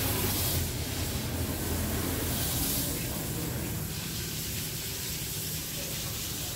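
Steady hissing noise over a low, even hum. There is no distinct single event.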